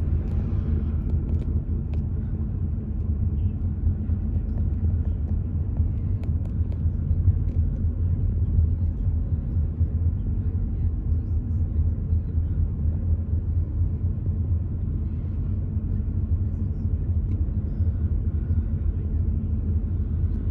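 Car driving at low speed, its engine and tyres making a steady low rumble.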